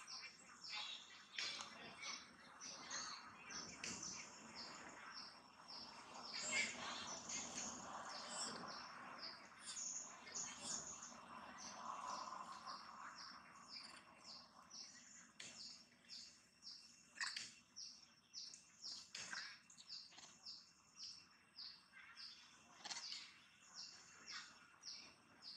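Birds chirping: a long run of short, high chirps, faint, turning into a fast, even series of repeated chirps in the second half.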